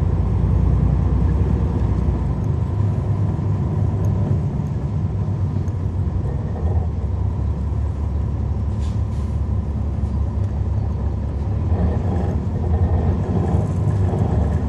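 Cummins ISL9 diesel engine of a NABI 40-foot transit bus, heard from on board, running with a steady low rumble. A short faint hiss comes about nine seconds in.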